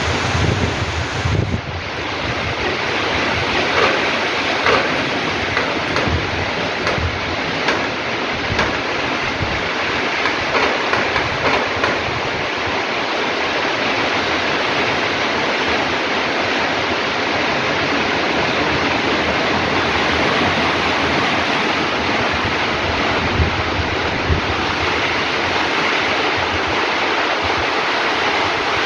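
Heavy rain pouring steadily in a storm with strong wind. Gusts buffet the microphone with low thumps through the first half, and the downpour is steadier after that.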